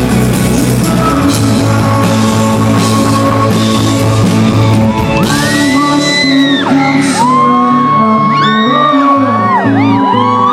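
A live rock band playing loudly, with a lead singer and full band. From about halfway through, shouts and whoops from the audience rise over the music.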